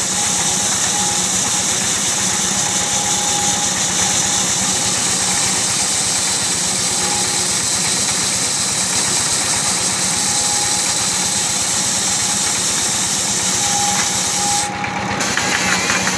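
Simple motor-driven wood lathe running steadily while turning a coconut-wood (glugu) pole, a constant machine drone with a strong hiss above it. The hiss drops out for a moment near the end.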